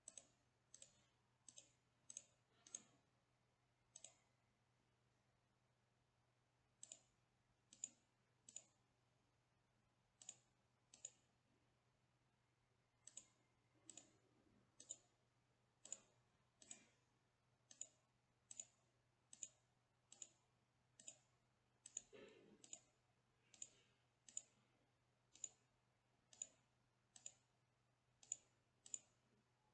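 Computer mouse button clicking: faint, sharp single clicks in irregular runs, some in quick pairs, with pauses of a few seconds, over a faint steady low hum.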